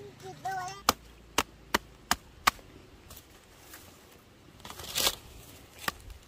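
Machete chopping through the green stalk of a banana bunch to cut off the hands: five sharp chops in quick succession starting about a second in, a few fainter cuts after, and a longer scraping crunch about five seconds in.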